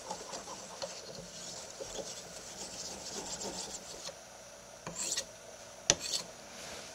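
Steel knife blade stroked back and forth on an ultra-fine natural whetstone, a soft repeated scraping as the last of the burr is honed off. Near the end there is a louder scrape, then a sharp click, then another scrape.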